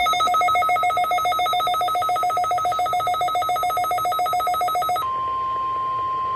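NOAA Weather Radio weekly test tones. First comes a fast-pulsing, ringing electronic tone at about nine pulses a second. About five seconds in, it switches abruptly to one steady tone, the weather radio's warning alarm tone.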